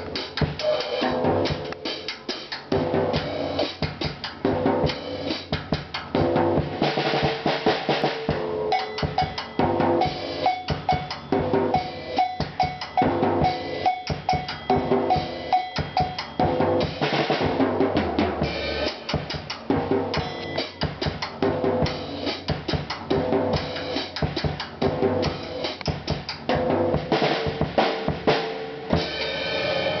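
Acoustic drum kit played in a basic cha-cha-cha beat, with a mounted cowbell struck in steady time over snare and bass drum hits.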